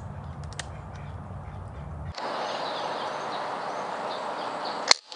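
A PCP air rifle fires once near the end, a single sharp crack that is the loudest sound here. Before it a low rumble gives way abruptly, about two seconds in, to a steady hiss.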